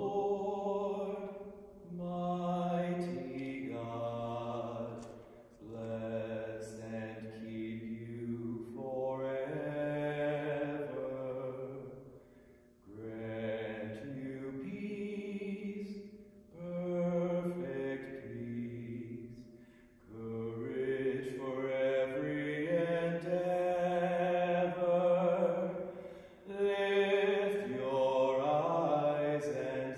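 A man singing a solo hymn unaccompanied, holding long notes in phrases of a few seconds with short breaks for breath between them.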